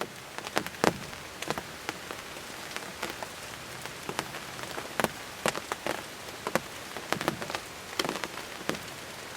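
Rain falling steadily with a soft hiss, while single large drops tap sharply close by at irregular intervals, about one or two a second.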